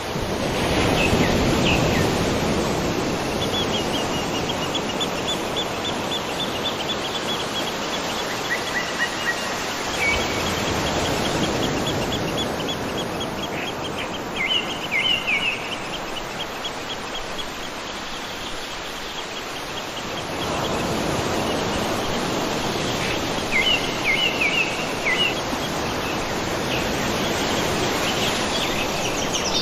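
Steady rush of falling and flowing water from a monsoon-swollen waterfall and stream. Over it, birds give bursts of high, rapid chirping trills several times.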